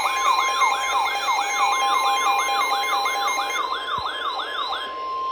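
Emergency Alert System attention signal for a severe thunderstorm warning: a steady high tone with a fast warbling siren-like sweep over it, about three sweeps a second. The warble stops shortly before the end, leaving the steady tone, which then cuts off.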